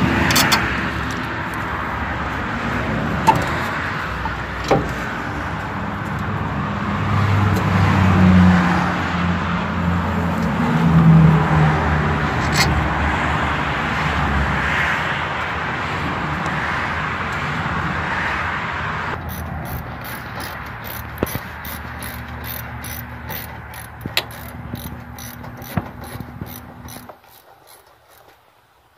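Hand-tool work on a truck's front suspension: small metal clicks and knocks as the lower ball joint's bolts are fitted, with a vehicle engine droning in the background in the first half. In the latter half comes a run of quick, even clicking, about three a second, as of a ratchet.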